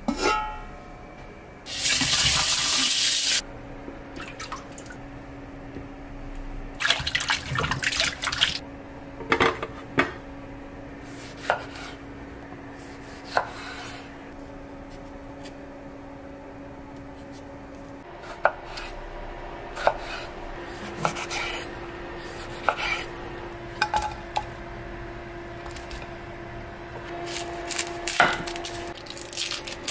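A heavy enamelled cast-iron pot lid clanks and rings briefly, then water runs for about two seconds. After that, a chef's knife cuts through tomatoes and an onion, tapping and knocking on a wooden cutting board in irregular strokes.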